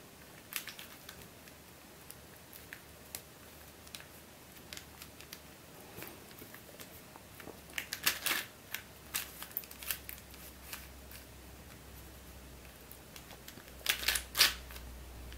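A QiYi stickerless 4-layer Super Square-1 puzzle being scrambled by hand: its plastic layers click and clack as they are twisted. The clicks are light and irregular, with busier runs about eight seconds in and again near the end.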